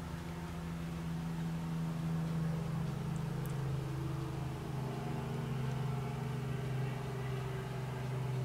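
A steady low mechanical hum that drops a little in pitch about three seconds in.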